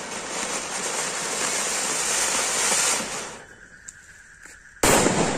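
Two Ganga Jamuna ground fountain fireworks spraying sparks with a loud, steady hiss that builds and then dies away about three seconds in. A sudden loud burst comes near the end.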